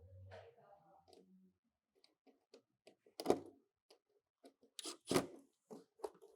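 Scattered small clicks with two louder sharp knocks, about three and five seconds in: hand work on a car's door trim panel, parts and tools being handled.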